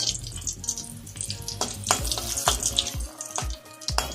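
Dried red chillies sizzling in hot oil in a kadhai, a steady hiss with sharp crackles, under background music with a steady beat.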